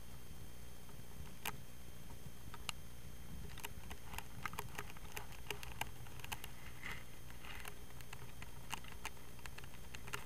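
Steady low outdoor rumble with scattered light clicks and taps, a few a second through the middle few seconds.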